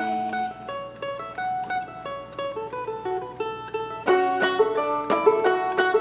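Live acoustic music: a plucked string instrument, mandolin or banjo-like, picks a quick run of short notes after a held note ends about half a second in. The picking gets louder and busier about four seconds in.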